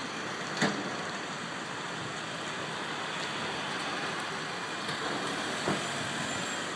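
Steady street and traffic noise, with two sharp knocks, one about half a second in and one near the end, as a suitcase is loaded into a car's back door and the door is shut.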